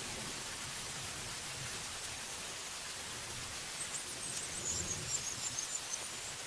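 Steady rain falling on forest trees and foliage, an even hiss. From about four seconds in, a run of short, high chirps sounds over it.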